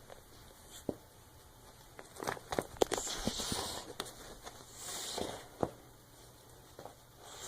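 Dog biting and tearing at a plush stuffed toy: scattered sharp clicks, with two longer rustling stretches in the middle.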